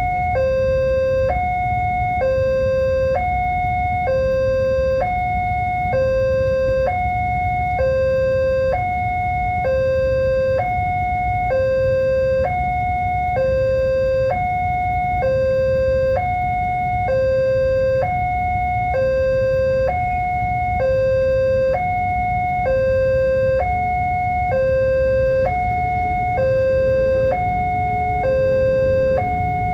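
Railway level-crossing warning alarm sounding continuously: an electronic two-tone signal alternating between a higher and a lower tone, each held just under a second, over a steady low rumble.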